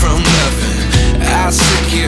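Background music: a song with a steady beat and heavy bass.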